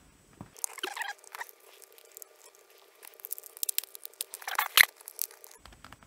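Small plastic clicks, taps and scrapes as a Sony RMT2100 remote control's casing and LCD window are handled and refitted, the loudest click a bit before five seconds in.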